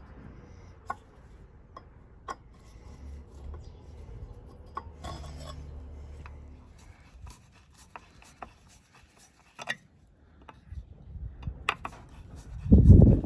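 A hand screwdriver working screws out of horseshoes on a wooden board: scattered clicks and scrapes of metal on metal and wood. A loud muffled rumble comes near the end.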